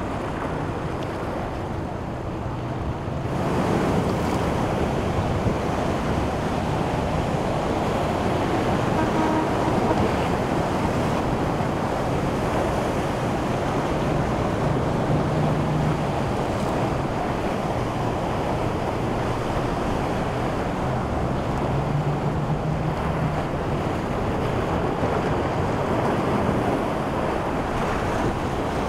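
Rough waves and surf churning through an ocean inlet, with wind buffeting the microphone; the rush grows louder about three seconds in. A boat engine hums faintly under it at times.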